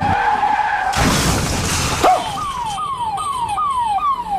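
Sound effects: a held squealing tone, then a noise burst about a second in, then from about two seconds in a rapidly repeating falling tone like a siren, about three sweeps a second.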